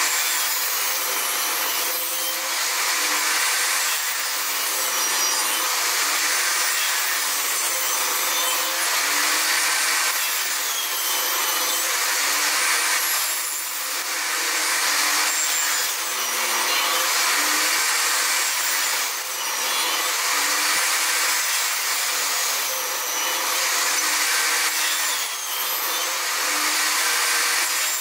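Table saw running and cutting wood, its blade slicing slots into the end of a board clamped upright in a tenoning jig over repeated passes; the pitch sags and recovers every two to three seconds.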